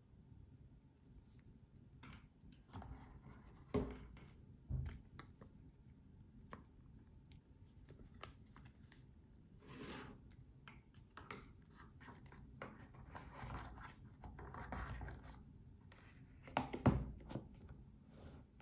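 Hands handling a watch and its cardboard presentation box: scattered scrapes, rustles and light knocks of the box and its cushion on a table top, with louder knocks a few seconds in and the loudest one near the end as the box is closed.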